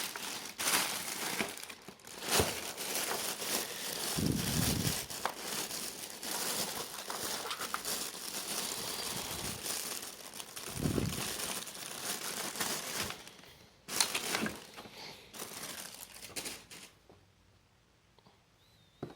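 Plastic wrapping around a keyboard crinkling and rustling with sharp crackles as the keyboard is pulled out of it, with a couple of dull thumps; the rustling stops about two seconds before the end.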